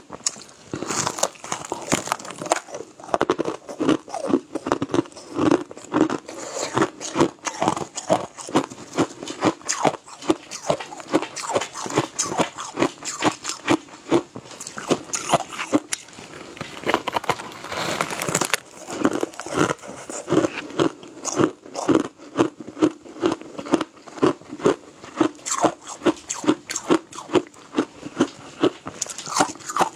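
Crunching and chewing bites of a frosty chunk of frozen shaved ice, steady and rhythmic, with a sharp crunch about twice a second.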